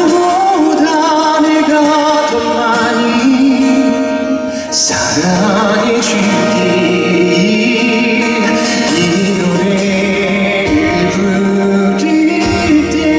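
Male vocalist singing a slow ballad live into a handheld microphone over band accompaniment, holding long wavering notes. There is a short break in the line about five seconds in before the next phrase.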